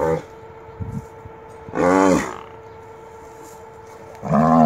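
A calf bellowing three times: a short call at the start, a long call about two seconds in, and another near the end. In this rabies video the bellowing is presented as a sign of rabies.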